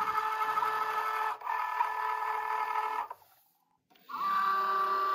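Cricut Joy cutting machine's motors whirring as it draws the cutting mat loaded with vinyl in. The whir comes in two runs: a steady hum of about three seconds with a brief break in the middle, then, after a short pause, a second run starting about four seconds in.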